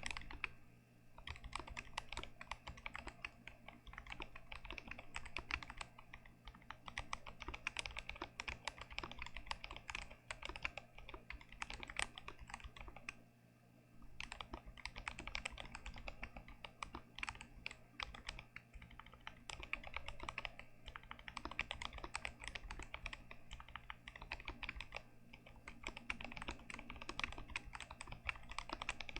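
Continuous fast typing on a GMMK Pro mechanical keyboard with Gazzew Boba U4T tactile switches, unmodded: a dense stream of key clacks, with a brief pause about a second in and another about halfway through.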